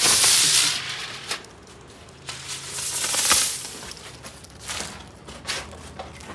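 Helicopter spinner firework whirling on a concrete floor, hissing as it sprays sparks. The hiss fades about a second in and swells again briefly around three seconds in, then dies away to faint crackles and clicks.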